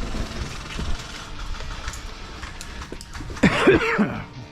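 Rustling, scuffing movement noise with scattered sharp clicks, then a brief shout a little over three seconds in.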